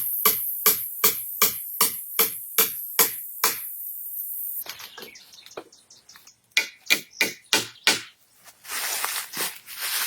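Rapid, evenly spaced tool strikes, about three a second, like a hatchet or mallet working wood; they stop about three and a half seconds in. A few scattered knocks and a burst of rustling follow near the end.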